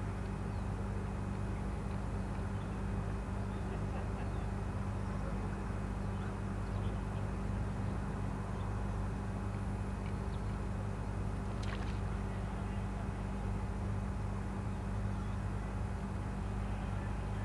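Steady low machine hum, like an idling engine. It is even throughout, with one short click about two-thirds of the way through.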